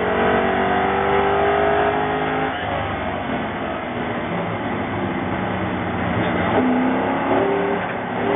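Spec Mustang race car's 5.0-litre V8 under hard acceleration, its note climbing, then dropping to a lower, rougher sound about two and a half seconds in as the driver lifts off and brakes for a corner. The revs rise again near the end as the car accelerates out.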